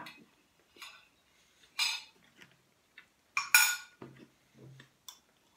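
Cutlery clinking and scraping against a plate: two louder clatters about two and three and a half seconds in, with a few lighter taps between.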